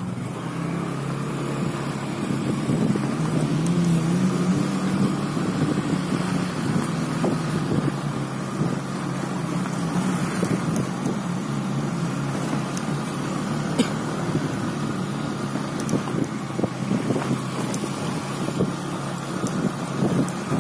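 Motorcycle engine running steadily while riding, its note picking up a little about three seconds in, with scattered small knocks and rattles from a bumpy, potholed road.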